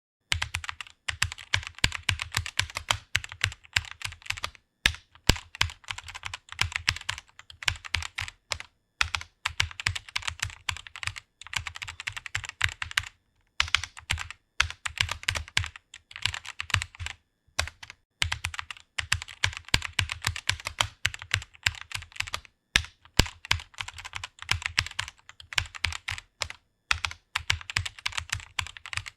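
Fast typing on a computer keyboard: rapid runs of key clicks, broken by brief pauses every few seconds.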